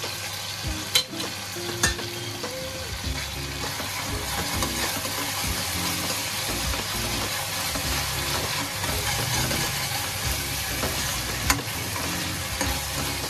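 Onion-tomato masala sizzling steadily in hot oil in a pan as it is stirred, with a few sharp clicks: one about a second in, another shortly after, and one near the end.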